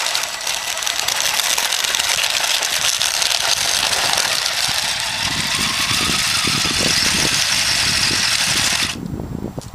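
Radio-controlled plow truck driving and pushing snow. Its motor and gears make a steady whine, and from about halfway in there is uneven scraping and rattling from the plow. The sound cuts off suddenly shortly before the end.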